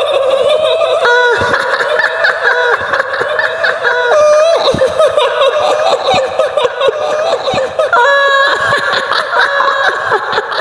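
Shrill, high-pitched woman's cackling laughter in the manner of a kuntilanak ghost, the wavering 'hihihi' laugh of Indonesian ghost lore.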